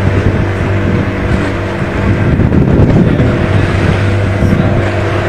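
Motor of an outrigger boat running steadily at cruising speed, a constant low drone, with water rushing and splashing along the hull.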